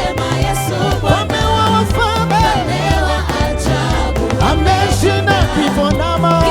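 Live band playing upbeat African gospel praise music: a stepping bass line and steady drum beat, with voices singing over it.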